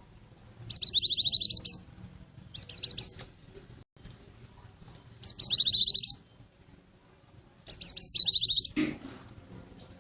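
Pleci (white-eye) song: four bursts of rapid, high-pitched twittering trills about two seconds apart. It is the kind of call used as a lure to draw wild white-eyes in.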